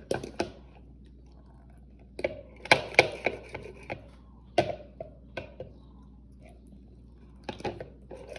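A mixing utensil knocking and clacking against a mixing bowl in uneven clusters of sharp taps, as a toddler stirs in added water. There are pauses between the bursts.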